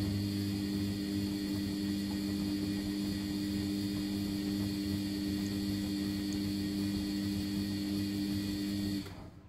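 Sharp (Vestel) ES-GFB7145W front-loading washing machine turning its drum during the main wash of a 90° boil wash: a steady motor hum with the laundry tumbling in soapy water. The hum cuts off suddenly about nine seconds in as the drum stops.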